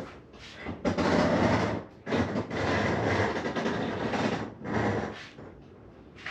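Stair-climbing hand truck loaded with a heavy water softener, its wheels rolling and rumbling in pushes of one to two seconds with short pauses between.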